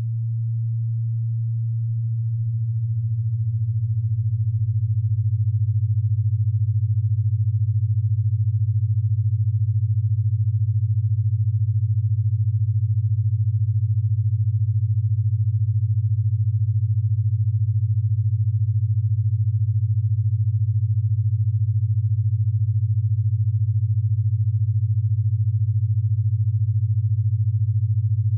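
A steady, low-pitched hum on a single tone. It fades up over the first few seconds and then holds level.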